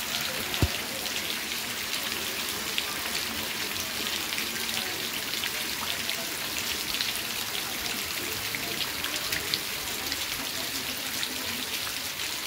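Steady rain falling, a dense patter of individual drops. One brief low thump about half a second in.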